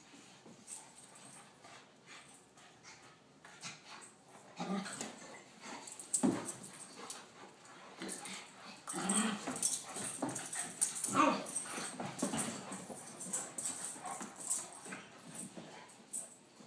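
Dogs play-fighting, giving short irregular bursts of dog vocal sounds with quieter gaps between, busiest a little past halfway through.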